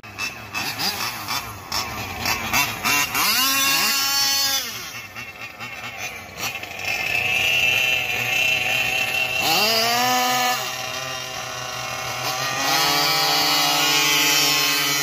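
Small gas engines of several racing GoPed stand-up scooters revving on the start line: short throttle blips, then revs swelling up and dropping back twice. About thirteen seconds in, the engines go to a steady high rev together as the riders launch.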